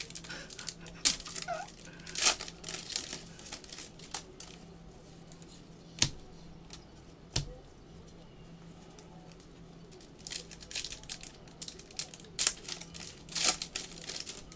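Foil trading-card packs being torn open and crinkled by hand, in bursts of crackling, with a quieter stretch in the middle broken by two knocks.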